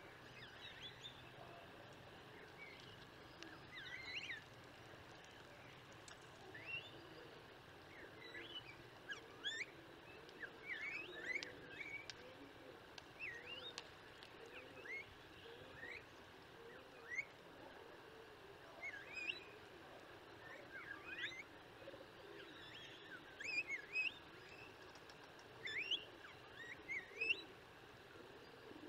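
Tristram's starlings calling: many short, rising whistles, one after another, with softer lower notes beneath.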